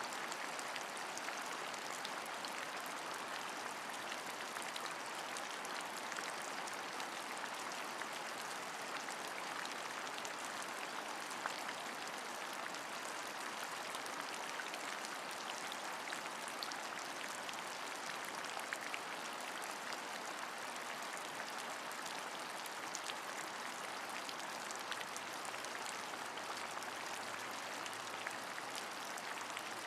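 Steady rain, with many small drops ticking through an even hiss.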